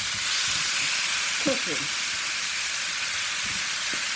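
Chicken pieces frying in a pan of hot oil and browned curry powder, a steady sizzle.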